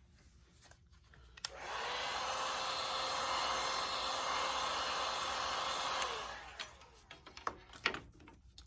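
Electric heat gun blowing on vinyl wrap, switched on about a second and a half in and off about six seconds in, its fan whine rising as it spins up and falling away as it stops.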